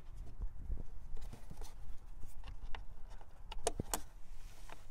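Plastic pulse-board cover being pushed back onto a GM truck's windshield wiper motor by hand: handling knocks, then a few sharp plastic clicks close together about three and a half seconds in. A low steady rumble lies underneath.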